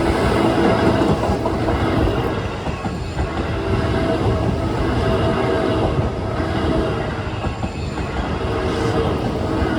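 An electric commuter train running over a level crossing: a loud, steady rumble of wheels on the rails.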